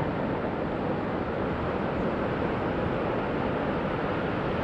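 Steady rushing noise of breaking ocean surf and wind, with no distinct events.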